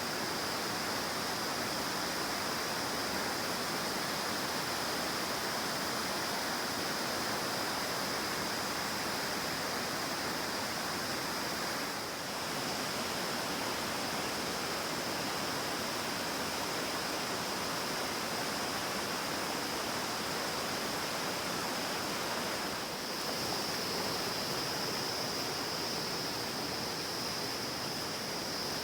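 Sal River, a Himalayan river, rushing steadily as a dense, even wash of water noise. A thin, steady high-pitched tone runs over it and grows a little stronger near the end.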